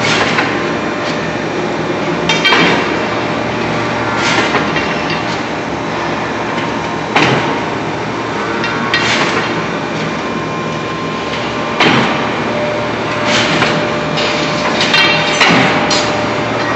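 Heavy forging machine working a red-hot steel piece: irregular metallic clanks every one to three seconds over a steady machine din with a constant hum.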